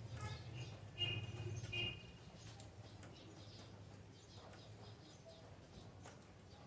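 A bird chirping twice in quick succession about a second in, over a faint steady low hum.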